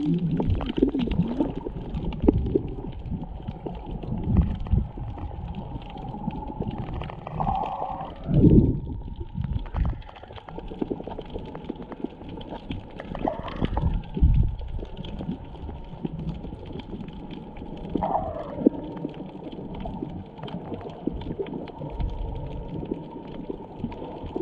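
Muffled underwater sound from a submerged camera: low rumbling water movement with small crackles and gurgles. Three times, several seconds apart, there is a louder gurgling whoosh that falls in pitch.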